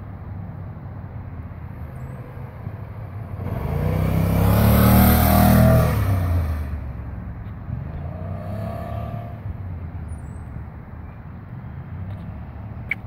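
A 2013 BMW C600 Sport maxi-scooter's parallel-twin engine passing close by. It swells to a peak about five seconds in, then fades as it rides away, its pitch dropping as it goes past. A fainter engine tone rises again briefly about eight seconds in, over a steady low background rumble.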